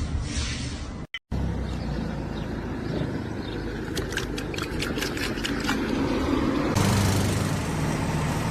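An engine running with a steady low rumble, broken by a brief dropout about a second in. A few light clicks come midway, and the sound changes abruptly near the end.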